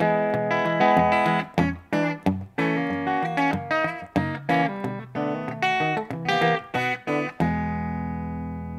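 PRS Custom 24 electric guitar played clean through its bridge humbucker, a PRS 85/15 pickup: a quick run of picked chords and single notes, ending with a chord left ringing out about seven seconds in.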